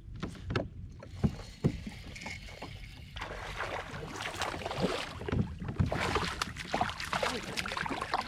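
A few sharp knocks, then about five seconds of water splashing close by, mixed with quick clicks and knocks.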